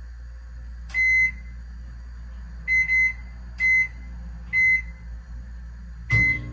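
Microwave oven keypad beeping as its buttons are pressed to set the cooking time: about six short high beeps at uneven intervals, two of them close together about three seconds in, over a steady low hum.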